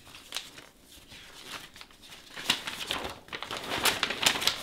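A large folded paper map being opened out by hand, the stiff paper rustling and crackling in quick strokes, getting louder about halfway through as the map spreads open.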